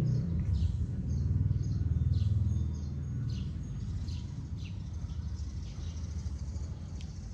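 Small birds chirping over and over, short downward-sweeping notes about twice a second, over a loud low hum that eases off about three seconds in.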